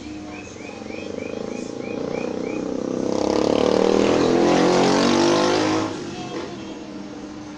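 A motor vehicle passing close by. Its engine grows louder over a few seconds, peaks with its pitch falling, and drops away quickly about six seconds in.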